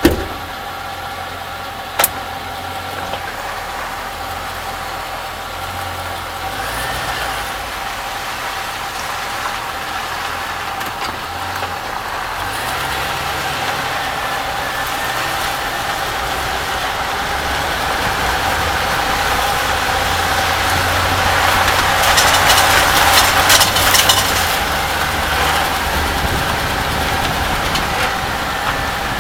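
2004 Chevy Silverado 1500 pickup running at low speed, its engine noise steady, with a sharp click about two seconds in and a burst of metallic rattling from underneath the truck about two-thirds of the way through, the loudest part. The rattle comes over bumps and its cause has not been found.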